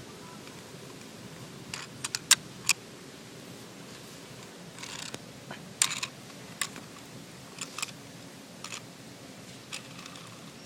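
Scattered sharp clicks and a brief rustle, irregular and not in any rhythm, with the loudest clicks a little over two seconds in.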